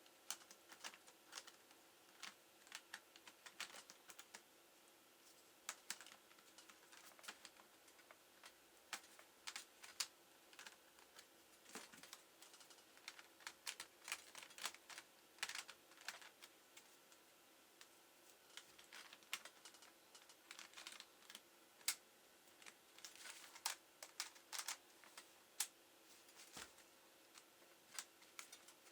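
Faint typing on a laptop keyboard: quiet, irregular key clicks coming in short uneven bursts.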